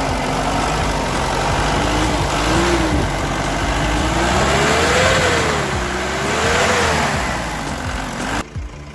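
Mahindra Bolero SLX's diesel engine running after a no-start fault was repaired, revved up and down about three times in rising and falling swells. The sound cuts off abruptly near the end.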